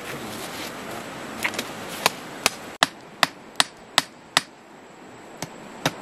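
Heavy knife blade hammering the top of a wooden stake, driving it into the ground: sharp knocks starting about two seconds in, seven in a steady rhythm of roughly two and a half a second, then a short pause and two more.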